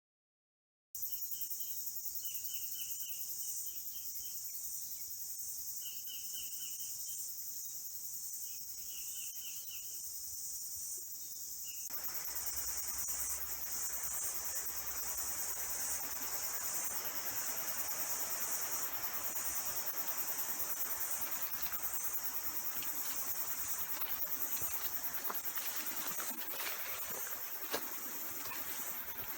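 Bush ambience: a steady high-pitched insect chorus, with short bird chirps repeating over the first half. About halfway through, a steady rushing noise comes in suddenly under the insects.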